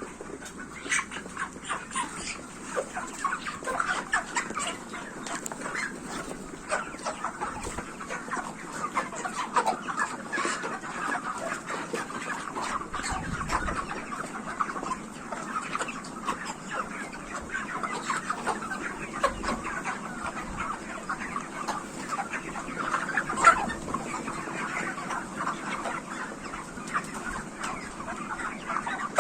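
A flock of 44-day-old broiler chickens clucking and calling, many short calls overlapping without a break, one louder call near the end.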